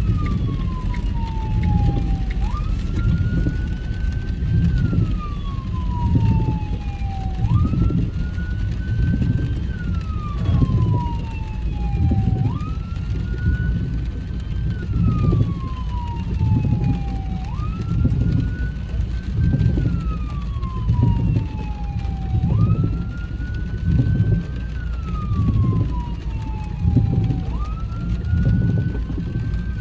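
Police siren on a slow wail, each cycle a quick rise then a long fall in pitch, repeating about every five seconds. Under it runs the rumble of a car driving on a wet motorway, heard from inside the cabin.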